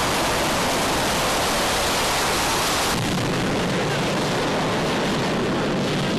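Steady, loud rushing noise with no clear tones, cutting abruptly about three seconds in to a duller, deeper rush.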